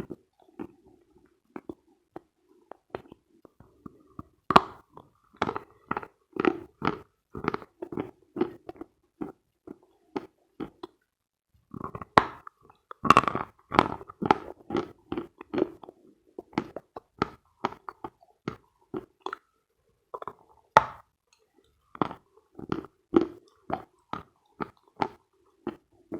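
Dry, dense Khrapovsky chalk being bitten and chewed close to the microphone: crisp crunches in runs of about two a second, with short pauses between the runs.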